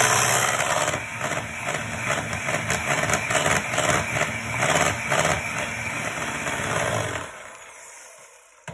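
Electric hand mixer running, its wire beaters whisking thick cheesecake batter in a bowl. About seven seconds in the sound drops sharply and fades away as the beaters come out of the batter.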